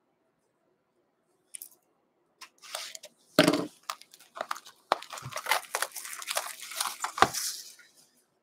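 Gloved hands tearing open a sealed hockey card box: a faint click, then a sharp rip about three and a half seconds in, followed by a busy run of crinkling, tearing and scraping of wrapper and cardboard.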